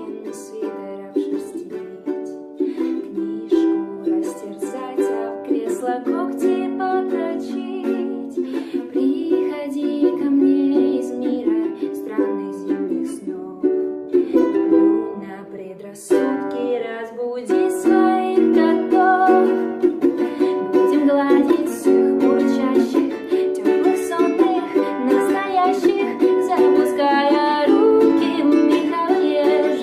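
Instrumental passage of a song, plucked notes with no singing, dipping briefly about halfway through before carrying on.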